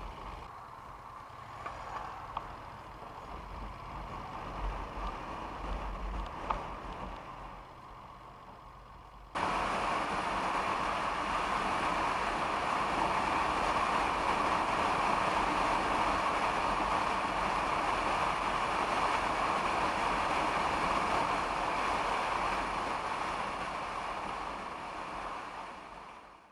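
Steady rushing noise of motion and wind picked up by an action camera's built-in microphone. It is quieter with a low hum at first, cuts suddenly about nine seconds in to a louder, even rush, and fades out at the end.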